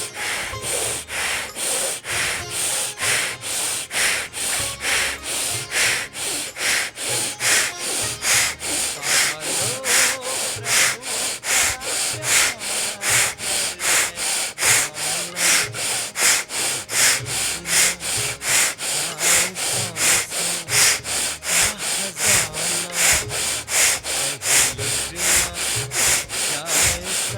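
Rapid, forceful breathing through the right nostril in bhastrika pranayama: sharp, hissing inhales and exhales in a steady even rhythm of about two strokes a second, inhale and exhale equally forceful.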